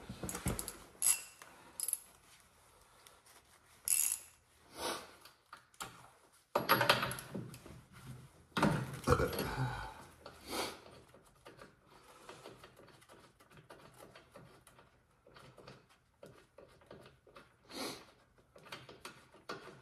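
Recoil pull-starter on a 1973 Polaris Colt's single-cylinder two-stroke engine being yanked, with two longer pulls about a third and halfway through among lighter clicks and knocks. The engine turns over but never fires, a fault the owner traces to no spark.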